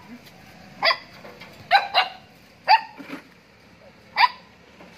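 Puppy barking in five short, high-pitched yaps, two of them in quick succession near the middle.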